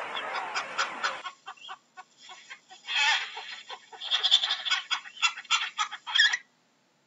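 King penguins calling: a run of rapidly pulsed calls in quick succession, the busiest stretch in the second half.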